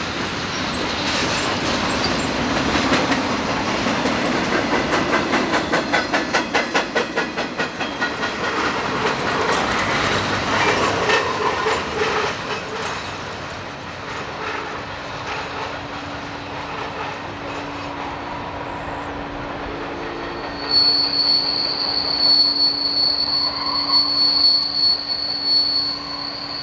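Freight train boxcars rolling past, with a fast clickety-clack of wheels over rail joints that is strongest in the first half and then thins out as the train moves away. About three-quarters of the way through, a steady high-pitched wheel squeal joins and holds to the end.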